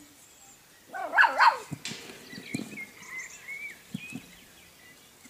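Golden retriever puppy giving two quick high-pitched yaps about a second in, followed by a few soft knocks.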